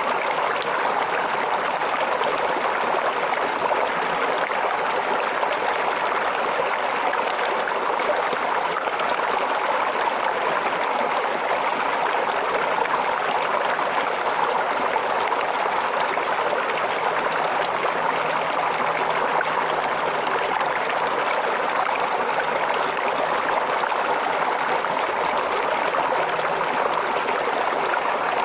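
Shallow stream babbling and trickling steadily over stones.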